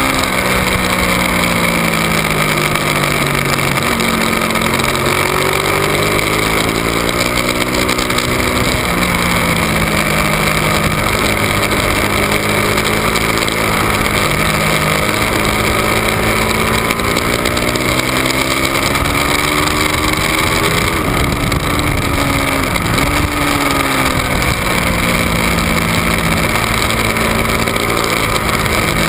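Ducati 1199 Panigale's Superquadro V-twin engine at racing speed, its note climbing with the revs through the gears and falling away several times, with sharp drops about twenty and twenty-three seconds in.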